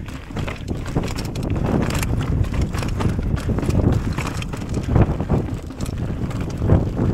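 Mountain bike on a rocky path: tyres crunching over stones and the bike rattling with many irregular knocks, with wind buffeting the microphone.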